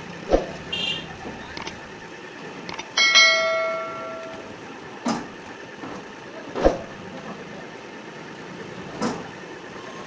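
A bell rings once about three seconds in, a clear ding that fades over a second or so. Several sharp clicks or knocks come before and after it.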